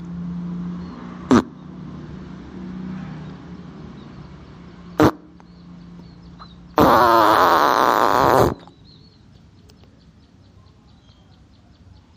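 Fart sound effects: two brief sharp blasts, then about seven seconds in one loud, long, wavering fart lasting nearly two seconds.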